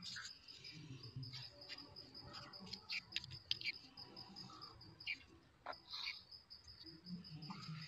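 Faint, steady high-pitched insect chirping in rapid pulses, with scattered light clicks and knocks.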